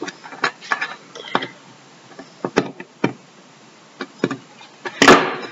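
Irregular light clicks and taps of small jewellery tools and aluminium wire being handled on a work surface, with a louder rustling noise near the end.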